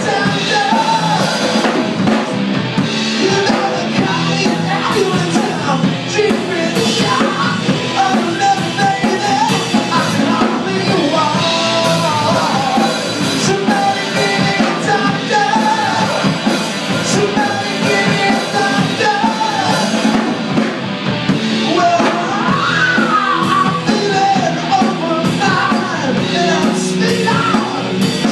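Live rock band playing loudly: electric guitar, bass guitar and drum kit, with a singer.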